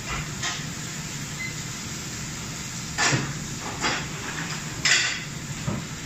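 Steady hum and roar of a commercial kitchen's gas range and extractor hood, with four short clatters of cookware on the stove in the second half.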